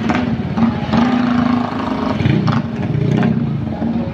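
Tour bus engine running steadily, with a low even hum over the noise of traffic.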